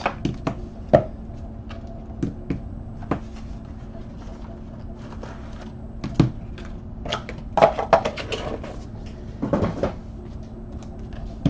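Light taps, knocks and rustles of a small cardboard trading-card box being opened and its cards handled and set down on a table, with a denser flurry of handling noise about two-thirds of the way through and again near the end.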